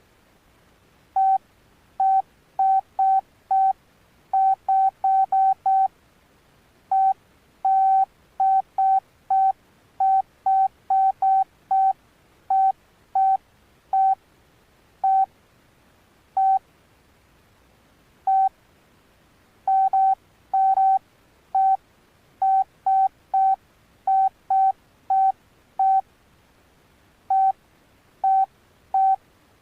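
Alcatel OneTouch Retro flip phone's keypad beeps as its keys are pressed: short beeps, all at the same pitch, some in quick runs and some spaced out, with pauses of a second or two between groups.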